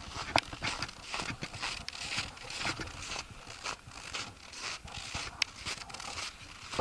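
Footsteps crunching in snow at a steady walking pace, about two steps a second.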